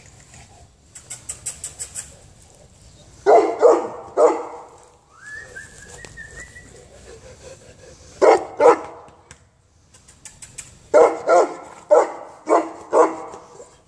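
Dog barking in three bursts: three barks, then two, then five, each bark short and sharp. A quick run of faint high clicks comes about a second in, and a thin high tone sounds between the first two bursts.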